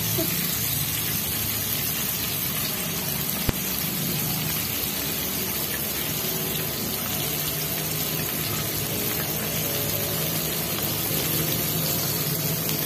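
Chicken pieces frying in oil in a pan, a steady sizzling hiss, freshly put in to fry. A single brief click sounds about three and a half seconds in.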